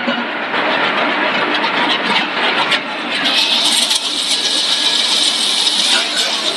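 Snack production-line machinery running: a loud, steady mechanical noise with a dense rattle from motors and stainless steel mesh-belt conveyors. About halfway through, a higher hiss joins in.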